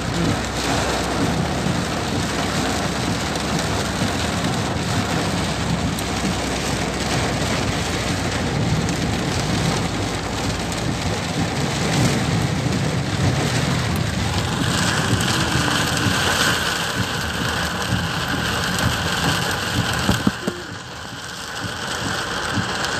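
Torrential rain pouring onto a car's roof and windows, heard from inside the moving car: a dense, steady hiss with a low rumble underneath, dipping briefly a few seconds before the end.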